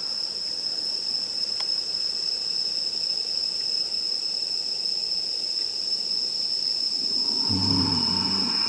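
Steady chorus of night-singing insects, one continuous shrill high note that does not break. Near the end a short low voice sound is heard over it.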